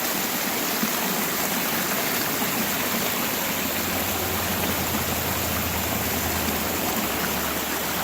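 Small cascading waterfall rushing steadily, with a low rumble joining in about three and a half seconds in.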